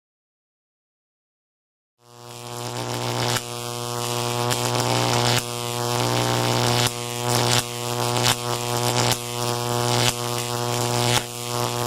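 Electrical buzz sound effect: a steady, loud mains-type hum that starts about two seconds in after silence and swells up. It is broken by sharp crackling snaps about once a second, like electric sparking.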